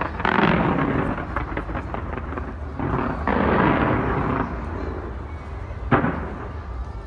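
Fireworks fired from the Lotte World Tower, heard from a distance. Three heavy booms come about a second in, about three seconds in and sharply about six seconds in, each followed by a rolling rumble that echoes among the buildings.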